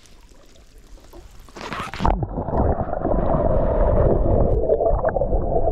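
A splash about a second and a half in, then loud, muffled sloshing and churning of water with no high-pitched sound in it.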